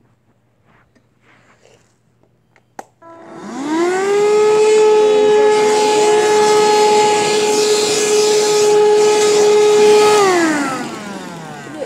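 Shark vacuum cleaner switched on with a click, its motor spinning up to a steady high whine, running for about six seconds, then switched off and winding down with a falling pitch near the end.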